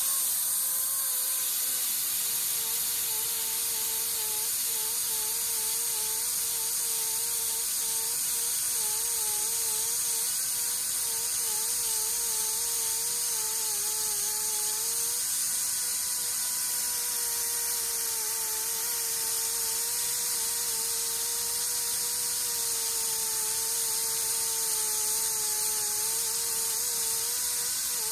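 Power sander with an abrasive disc grinding curb rash out of an alloy wheel rim. A steady motor whine with a wavering pitch runs over a strong hiss, the pitch dipping now and then as the tool is pressed into the metal.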